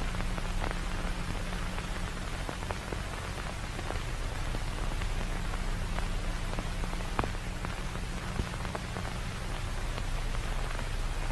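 Steady hiss with scattered faint crackles over a low hum, like static or rain from the analog horror video's soundtrack.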